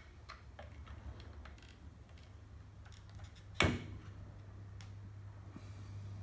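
Faint clicks and scrapes of steel hemostats working inside the plastic filler neck of a chainsaw fuel tank as the fuel line and filter are pulled out, with one sharper click about three and a half seconds in. A low steady hum runs underneath.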